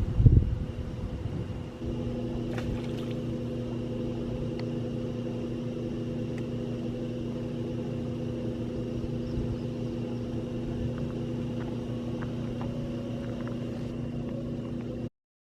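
A brief loud thump, then from about two seconds in a steady engine hum at one unchanging pitch, which cuts off abruptly near the end.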